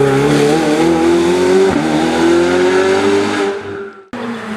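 Hill-climb race car engine pulling under acceleration, its pitch rising steadily with a brief dip at a gear change about a second and a half in, then fading away. Near the end the sound cuts off abruptly and another race car engine comes in, its pitch falling.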